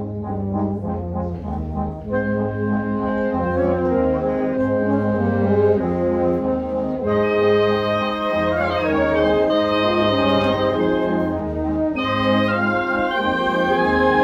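Concert band of brass and clarinets playing: held chords over a bass line that moves in steady, even notes. The sound grows fuller and brighter about seven seconds in.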